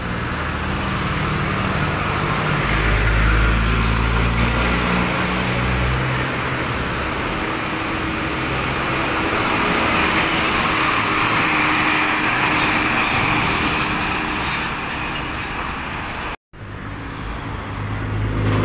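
Sinotruk tractor-trailer driving past at close range: a deep diesel engine rumble a few seconds in, then tyre and road noise swelling as it goes by. After an abrupt cut near the end, another engine hum is heard.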